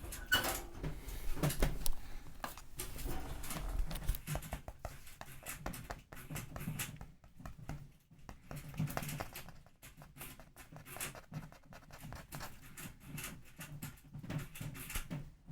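Pet degu nibbling with gentle, affectionate bites, making an irregular run of small clicks and scratches, with a few faint short calls near the start.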